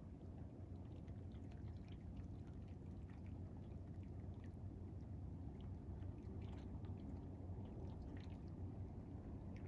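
Gentle seawater lapping at the shore: a steady low wash with scattered faint small splashes and trickles.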